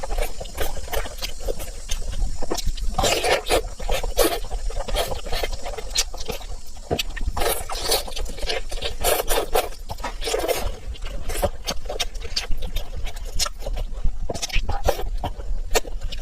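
Close-up eating sounds: a person chewing and smacking food, with many short sharp clicks and wet mouth noises coming in quick irregular succession.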